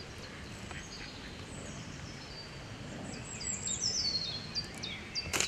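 Songbirds singing, with repeated short falling chirps and a louder cascading run of descending notes about three to four seconds in. Near the end, one sharp snap as a bait catapult is fired.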